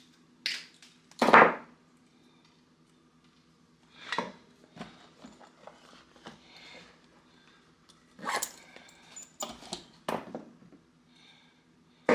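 Metal hand tools such as pliers and locking pliers being handled, set down on a wooden workbench and slid into a canvas tool roll: a string of separate clinks and knocks, the loudest a little over a second in, over a faint steady hum.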